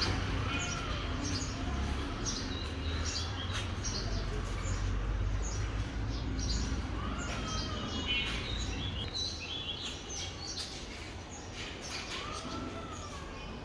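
Birds chirping with short, high repeated notes and a few longer rising-and-falling calls, over a steady low rumble.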